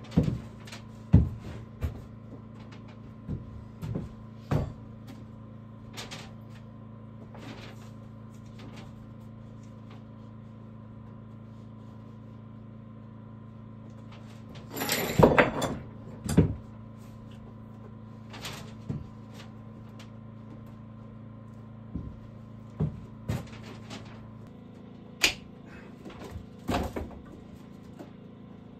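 Scattered sharp knocks and clicks, with a louder cluster about halfway through, over a steady low hum that changes about three-quarters of the way in.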